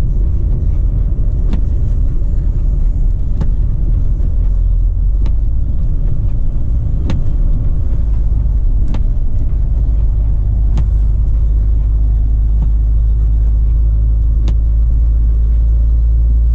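Volvo FH16 truck's 16-litre straight-six diesel engine and tyre noise as a steady low drone heard from inside the cab while driving at low speed, with a light click about every two seconds.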